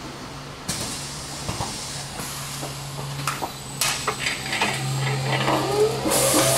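Automated film roll wrapping machinery running: a steady low hum with hissing, several clicks and knocks as rolls move along the roller conveyor, and a rising whine near the end, after which the hiss gets louder.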